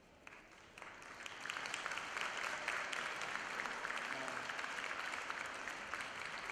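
Audience applauding, starting about a second in and quickly swelling to steady clapping.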